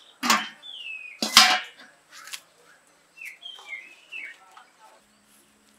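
Two sharp metal clanks about a second apart from the stainless steel wok, its lid and the metal spatula being set down. They are followed by a run of short, falling bird chirps.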